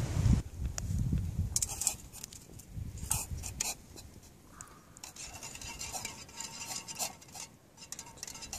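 Light metallic clinks and scrapes against a titanium mug as sugar is added and stirred into tea. A few separate knocks come first, then a quicker run of clinking with a faint ring near the end.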